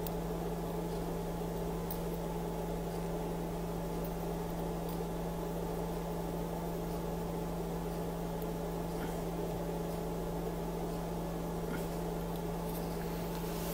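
Steady electrical hum with a faint even hiss and a few faint ticks; the soldering work itself makes no clear sound.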